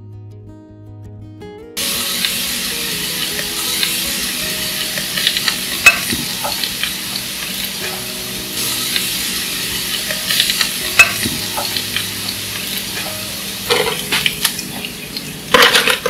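Minced garlic sizzling in hot oil in a nonstick frying pan, starting suddenly about two seconds in, while a wooden spatula stirs it and now and then clicks and scrapes against the pan.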